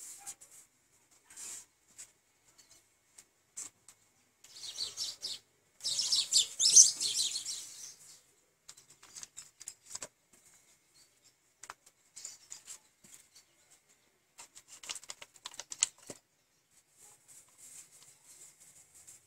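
Scratchy brushing and rubbing as paint is stroked onto a board with the hand and fingers, in short irregular strokes. The sound is loudest and densest for about two seconds near the middle.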